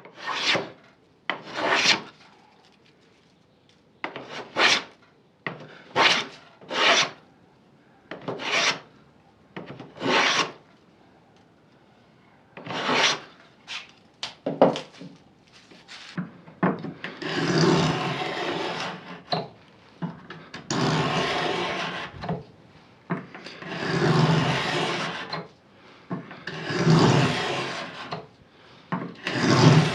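A hand moulding tool is being pushed in repeated strokes along the edge of a wooden trim board, cutting a moulded profile. In the first half the strokes are short and separate; from about halfway on they become longer, about two seconds each.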